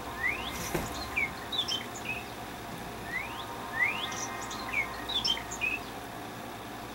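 Mobile phone ringing with a birdsong ringtone: a phrase of rising whistles followed by quick chirps, played twice in the same way.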